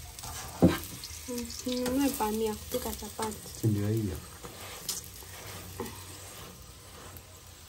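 A chapati frying in oil in a non-stick pan, a low steady sizzle. There is one sharp knock about half a second in, and snatches of low talk in the first half.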